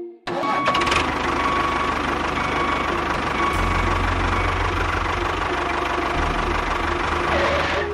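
Engine running steadily with a rapid low throb, starting suddenly just after the start; the throb grows heavier about three and a half seconds in and eases slightly near six seconds.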